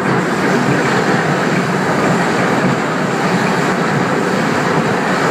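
R32 subway train running through a tunnel: a steady, loud noise of wheels on rail and running gear.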